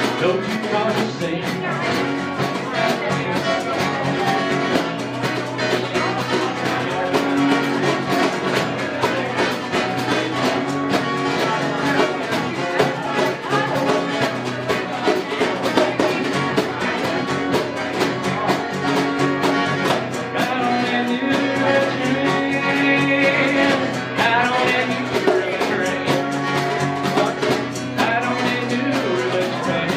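Live country-style music: a strummed acoustic guitar over a djembe and hand-percussion rhythm.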